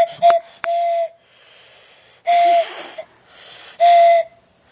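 Train whistle blown in four breathy toots of one steady pitch: a short one, a longer one ending about a second in, then two more spaced a second and a half apart.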